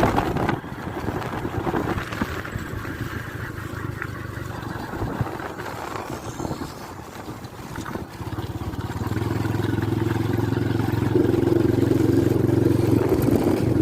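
Motor vehicle engine running on the move. It turns louder and steadier, a low even hum, from about eight seconds in.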